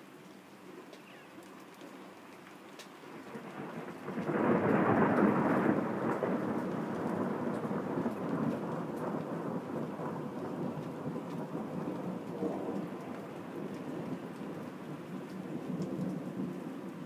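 Thunder: a rumble breaks in suddenly about four seconds in, loudest for a couple of seconds, then keeps rumbling unevenly and slowly dies down.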